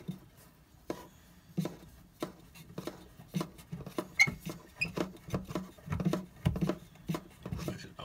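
Handling noise: an uneven run of knocks and rubs as a phone held close bumps and brushes against an arm and rubber washing-machine hoses, coming faster toward the end.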